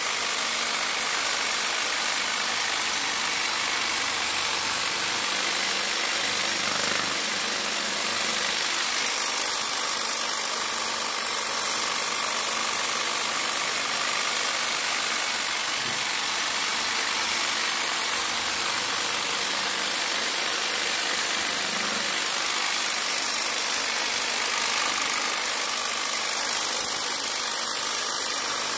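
Corded jigsaw fitted with a long straight cloth-cutting knife blade, running continuously as the blade saws up and down through a thick block of foam. The motor gives a steady high whine over a rattling hiss.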